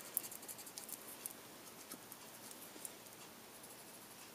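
Faint scratching ticks of a paper blending stump, wet with mineral spirits, rubbed over colored pencil on paper to blend the shading. The strokes are closest together in the first second or so, then thin out to a few scattered ticks.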